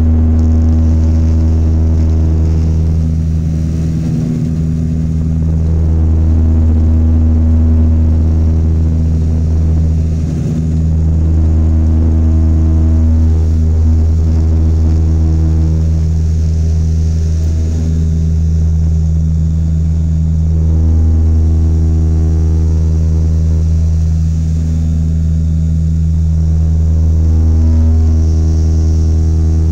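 Cabin-side drone of a De Havilland Canada Dash 8 Q400 turboprop's engines and propellers at takeoff power, through the takeoff roll, lift-off and climb-out. It is a loud, steady hum of layered propeller tones that swells and eases slightly, with two brief knocks about four and ten seconds in.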